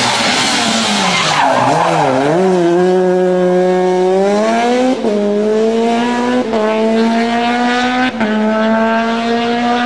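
Fiat Punto rally car taken through a tight bend at high revs, its tyres squealing as it slides, the engine note wavering. It then accelerates away hard, the revs climbing and dropping sharply at three quick upshifts about a second and a half apart.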